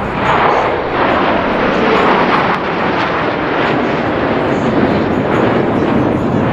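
A formation of F-16 fighter jets flying overhead, their engines a loud, steady jet roar.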